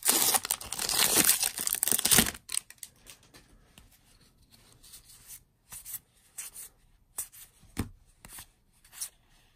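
A foil booster-pack wrapper crinkling and tearing open for the first two seconds, then soft scattered clicks of trading cards being slid and flicked through in the hand.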